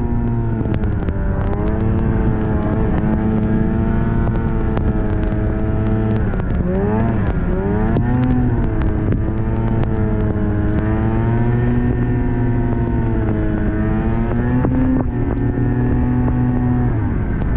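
Snowmobile engine running under way at a fairly steady speed. Its pitch dips and climbs back about halfway through as the throttle is eased off and opened again.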